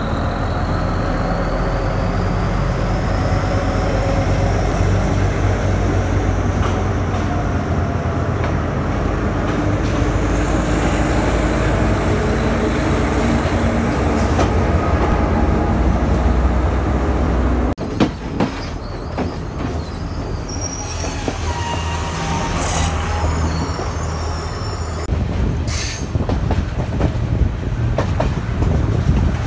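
Diesel locomotive engine running with a steady low drone and a high whine that slowly rises in pitch over the first ten seconds. It cuts off suddenly about two-thirds in, giving way to the rumble of a train on the rails with scattered clicks and knocks.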